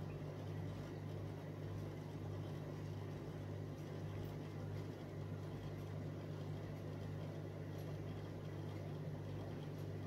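Aquarium filter equipment running: a steady low hum with a faint hiss over it.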